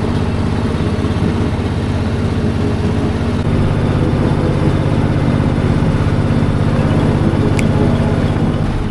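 Small river ferry boat's engine running steadily, its note shifting about three and a half seconds in and getting slightly louder after.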